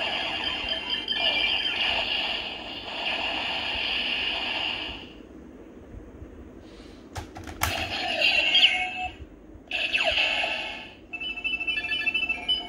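The speaker of a DX Ziku-Driver toy belt plays electronic transformation sound effects and voice with a Zi-O Ridewatch loaded. There is a short lull, then sharp plastic clicks about seven seconds in as the toy is worked. More electronic sound bursts follow, ending in a run of quick even beeps.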